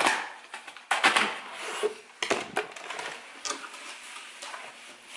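Cardboard shipping box being opened and unpacked: flaps and cardboard rustling and scraping, with a few sharp knocks about a second in and again just past two seconds.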